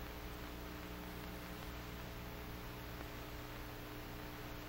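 Steady low hum with an even hiss: the background noise of an old film soundtrack. There are no clicks from the rifle.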